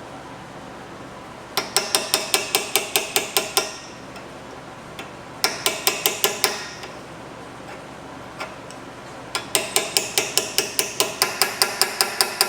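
Hammer blows on a pin tool, driving brake pad retaining pins into a front brake caliper: rapid metallic taps, about six a second, each with a brief ring. They come in three runs, the first about a second and a half in, a short one in the middle, and a longer one near the end.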